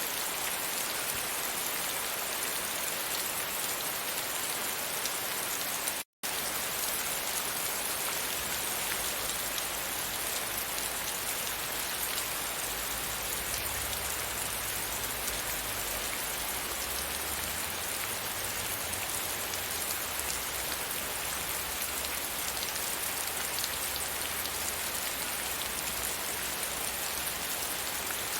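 Steady rain falling against a window pane, cutting out for a split second about six seconds in. From about nine seconds a low rumble sits underneath the rain.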